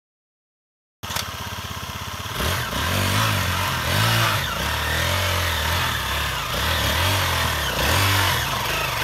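Dirt bike engine running, starting about a second in, its revs rising and falling repeatedly as the bike climbs a rocky trail.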